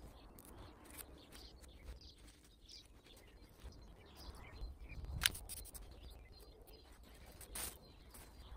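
Rustling of dry leaf litter and mesh fabric as hands work on a ghillie suit, with scattered crackles and clicks. The sharpest click comes about five seconds in, after a brief swell of rustling as he shifts on the leaves.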